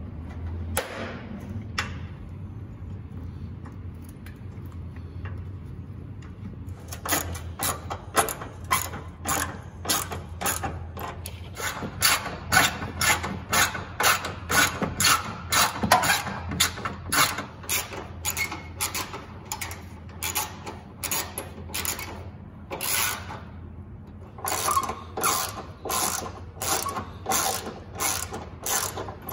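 Hand ratchet with a socket and extension clicking in quick back-and-forth strokes, about two a second, as it turns a car headlight's mounting bolts. It starts about seven seconds in and pauses briefly near the end. Before it come a couple of knocks from plastic parts being handled.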